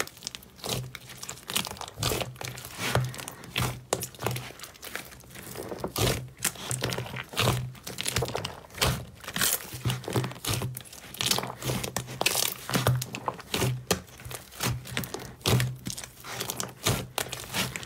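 Slime being squeezed and kneaded by hand close to the microphone, giving dense, irregular crackling and popping clicks, several a second, with soft low thuds mixed in.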